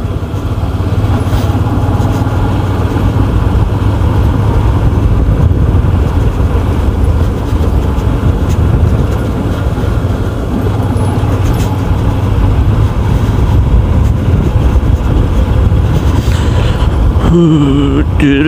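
Steady rush of riding wind over the microphone on a Yamaha FZ V2 motorcycle, with its single-cylinder engine running underneath. The noise dips slightly about ten seconds in, and a wavering pitched sound comes in near the end.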